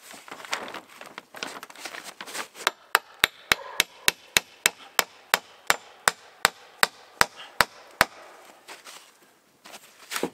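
Claw hammer driving nails into a birch-log window frame: a fast, even run of about seventeen sharp blows, roughly three a second, starting a few seconds in and stopping about two seconds before the end. Before the blows, rustling and scraping as the frame piece is handled.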